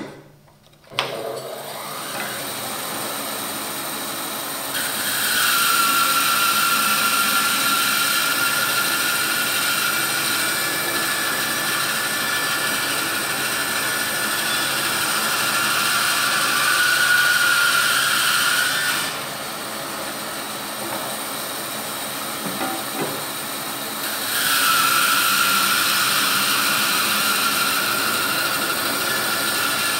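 Laguna bandsaw ripping a log lengthwise into lumber: the motor runs from about a second in, and the blade cuts through the wood with a steady high whine. The cutting stops for about five seconds in the middle, leaving the saw running without load, then resumes near the end.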